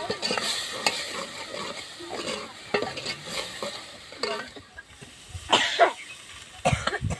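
A metal ladle stirring and scraping in a pan of sizzling, frying food, with irregular sharp scrapes and clinks over a steady sizzle. The loudest scrape comes about five and a half seconds in.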